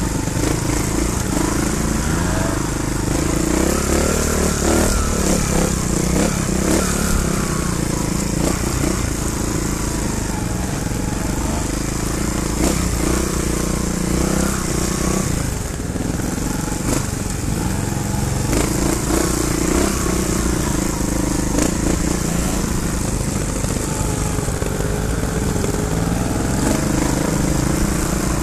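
Trial motorcycle engine running at low speed, its pitch rising and falling as the throttle is opened and eased off over and over.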